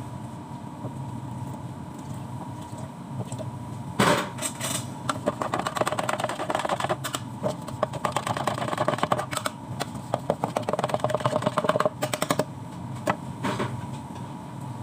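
Rapid clattering and clinking as drink ingredients are handled and added to plastic shaker cups, for about eight seconds in the middle, with one more click near the end. Under it runs a steady hum with a constant tone.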